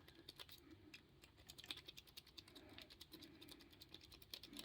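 Faint, irregular small clicks and scrapes of a lock pick and tension wrench working the pins of a Ruger pin-tumbler padlock.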